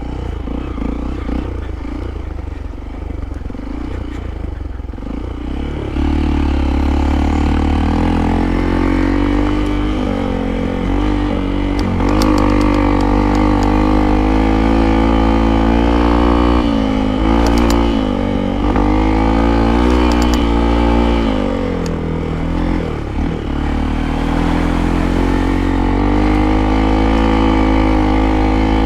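Motorcycle engine running under throttle, louder from about six seconds in. Its pitch dips and climbs several times as the throttle is eased and opened again.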